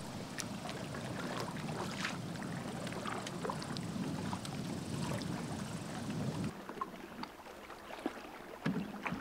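Small waves lapping and slapping against a canoe and a rock shoreline, with scattered little splashes and drips. The sound drops noticeably quieter about six and a half seconds in, leaving a few brief splashes near the end.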